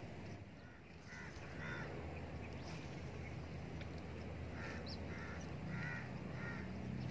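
A bird calling in short repeated calls: a pair about a second in, then a run of five or so near the end, over a steady low hum.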